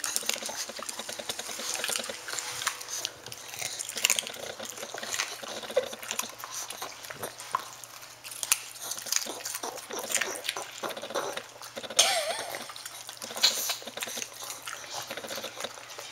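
A pug chewing a carrot, with irregular crisp crunches.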